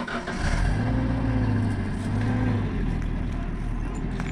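An engine running steadily, with a low hum and a pitch that wavers slightly up and down; it comes in abruptly.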